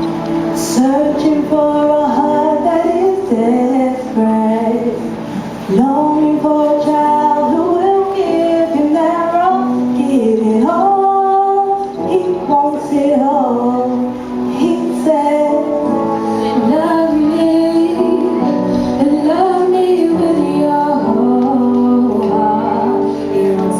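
Music: a woman singing a gospel song over instrumental accompaniment, with long held and sliding notes.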